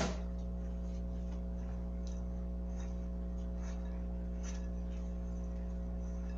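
Hands mixing crushed biscuits with sweetened condensed milk in a glass bowl: faint, scattered soft rustles and taps, with a sharper click at the very start. A steady low electrical hum runs underneath and is the loudest thing.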